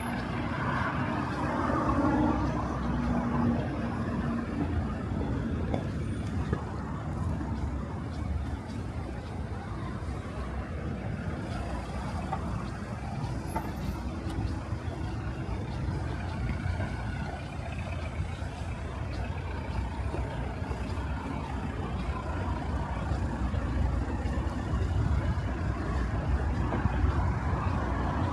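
City street traffic: a steady rumble of motor vehicles running and passing, with a low engine drone in the first few seconds and again briefly midway.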